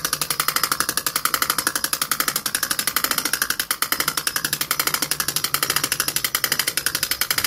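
Hand-cranked ratchet in an InTech Solutions truck camper lift clicking rapidly and evenly as the crank is turned to raise the camper. The mechanism has just been de-rusted and re-greased and runs without squealing.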